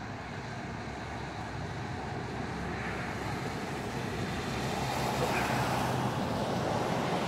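Steady outdoor background noise, a low rumble with hiss, slowly getting louder. There are no distinct chewing clicks or other separate events.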